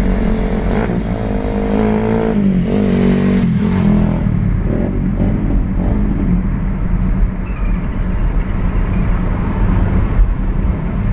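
A road vehicle driving at night: a steady low engine and road drone, with a pitched engine note that shifts in pitch about one to four seconds in.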